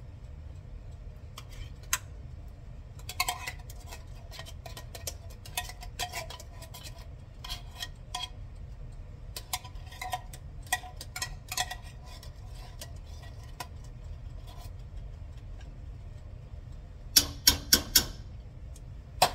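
Kitchen utensil clinking and scraping against a can and pan as condensed cream of mushroom soup is spooned out, with scattered taps and a quick run of four sharp knocks near the end.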